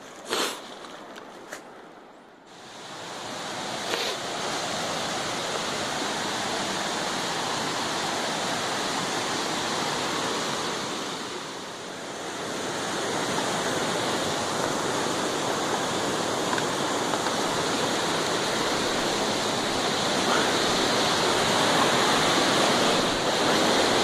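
Steady rushing roar of a tall waterfall, setting in about two seconds in and growing louder toward the end, with a brief dip midway. A couple of short knocks come just before it.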